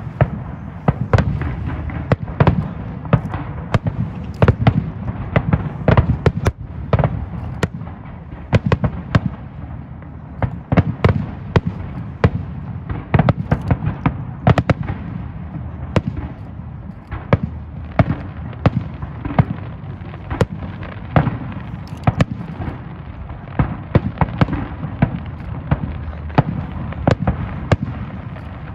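Aerial fireworks display: shell bursts going off in quick succession, several sharp bangs a second over a steady low rumble.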